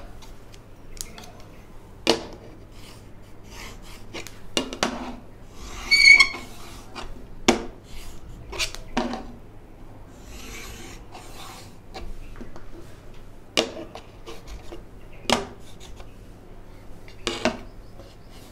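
Chalk drawing straight lines on a chalkboard along a wooden set square: a series of short scraping strokes with sharp taps and knocks, and a brief high chalk squeak about six seconds in.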